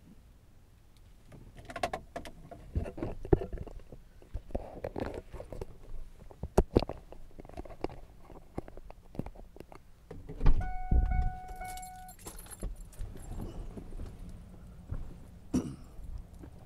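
Rattling handling noise, a string of clicks and knocks, then about ten seconds in a heavy thump and the Ford truck's warning chime dinging for about a second and a half, a low steady hum continuing after it.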